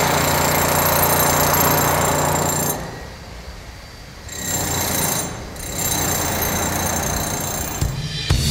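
Loud mechanical rattle of construction machinery with high whining tones over it. It drops away about three seconds in, comes back briefly, then runs again from about five and a half seconds until music takes over at the very end.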